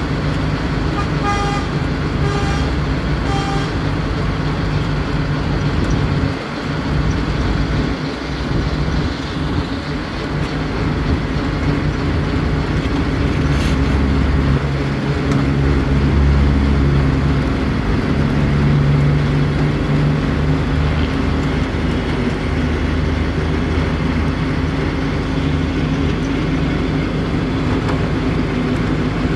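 Heavy machine's diesel engine running steadily. It works harder for several seconds midway as the scissor lift is pushed up onto the truck bed. About a second in there are three short beeps or horn toots.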